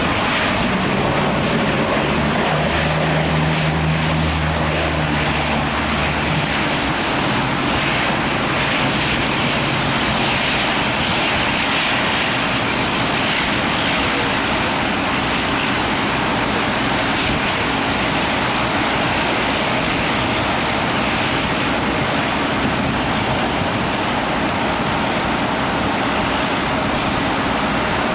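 Steady rushing noise of aircraft engines at an airport, with a low droning hum for the first six seconds or so.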